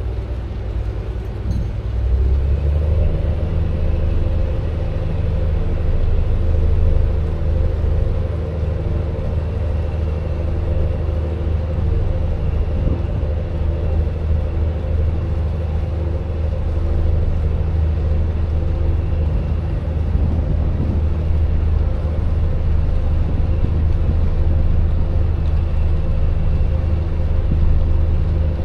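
Cruise boat's engine running under way with a steady low drone that steps up about two seconds in.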